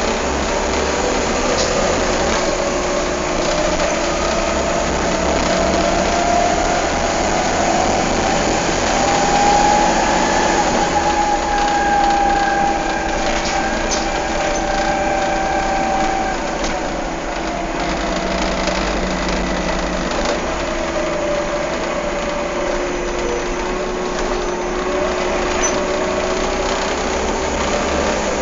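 Volvo B7TL double-deck bus's engine cooling fan whirring over the running diesel engine. The fan's whine rises in pitch over roughly the first ten seconds, holds, then slowly falls back as the fan speed changes, over a steady lower drone.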